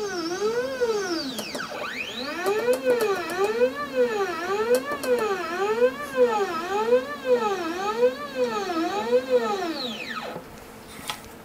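Stepper motors of a 3018 Pro desktop CNC router jogging the machine table in a run of short moves. The motor whine rises and falls in pitch about every three-quarters of a second as each move speeds up and slows down, and it stops about ten seconds in.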